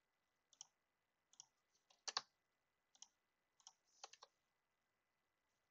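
Faint clicks of a computer mouse and keyboard: about ten short, separate clicks, the loudest a quick pair about two seconds in.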